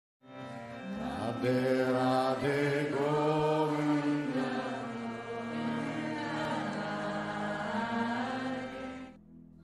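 Intro music: a chanted devotional mantra sung over a steady drone, fading out near the end.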